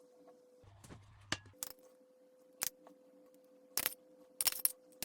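Kitchen utensils clinking against cookware: a few sharp single taps, then a quick cluster of bright metallic clinks near the end.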